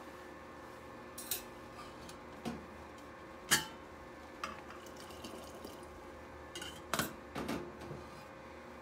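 A red drip kettle and the lid of a stainless-steel kettle being handled: a string of metal clinks and knocks, the loudest about three and a half seconds in and a cluster near seven seconds, over a steady low hum.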